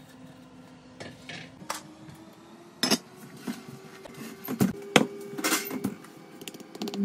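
Cast-iron Dutch oven and its lid being handled: a series of hard knocks and clinks, loudest about three and five seconds in, over a steady low hum.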